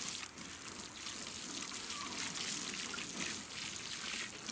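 Water sprinkling steadily from a plastic watering can's rose onto loose potting soil in a metal wheelbarrow, a constant spraying patter as the soil mix is drenched.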